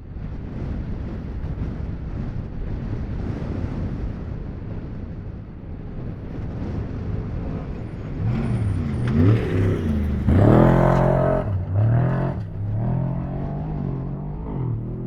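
Off-road race vehicle engine revving up and down as it comes close and goes by, loudest about two-thirds of the way through, then dropping to a steadier note. It follows a low, steady rumble.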